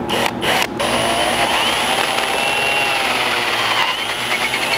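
Cordless drill with a 1/8 inch bit and drill stop slowly drilling a pilot hole through factory seam sealant into the roof sheet metal. It starts with a couple of short bursts, then runs as a steady whine that wavers a little in pitch as the bit cuts.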